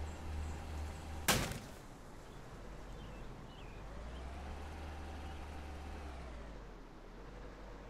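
A single sharp knock or thump a little over a second in, over a steady low rumble.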